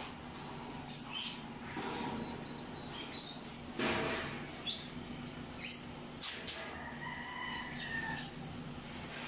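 Galvanized wire cage panels clinking and rattling as they are laid and shifted by hand, loudest in a short scraping rattle about four seconds in, with a few sharp clicks a couple of seconds later. Birds chirp in short calls in the background.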